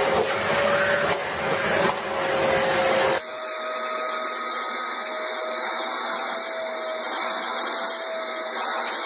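A steady motor whine over rushing air, which changes abruptly about three seconds in to a thinner whine, a little higher in pitch.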